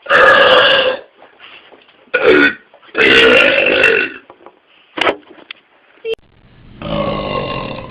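A man burping loudly about five times in a row, the longer belches lasting about a second each.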